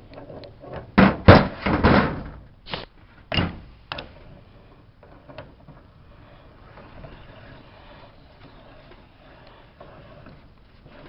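Knocks and clatter of bracket parts being handled and fitted during assembly: a quick cluster of sharp knocks in the first couple of seconds, a few single knocks after, then it goes quiet.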